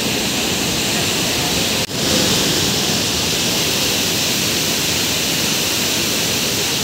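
Floodwater pouring out of a dam's open spillway gates: a steady, loud rush of white water. It drops out for a moment about two seconds in, then carries on.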